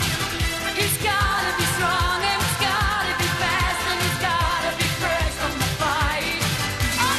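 Pop song with singing over a steady drum beat.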